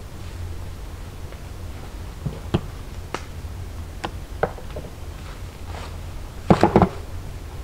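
Stones knocking against each other as they are handled and set in a dry stone wall: a few scattered single clacks, then a quick, louder run of about four near the end, over a steady low rumble.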